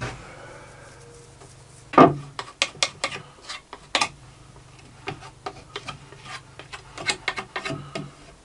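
Workshop handling noises while wood glue is spread over a plywood board with a small spreader: a sharp knock about two seconds in, then scattered taps and clicks with light scraping.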